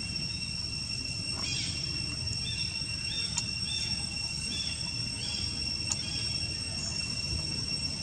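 Steady high-pitched drone of insects, with a run of short chirps in the middle and a few faint clicks.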